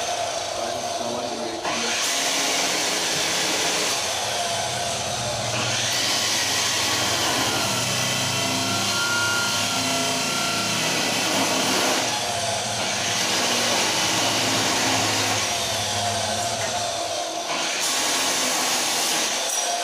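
Loud, steady noise from a metalworking power tool running on metal. It comes in stretches that change abruptly every few seconds.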